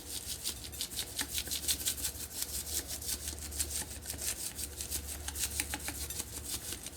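Hands being rubbed and scrubbed together while being washed, a quick rasping rhythm of several strokes a second, over a faint low hum.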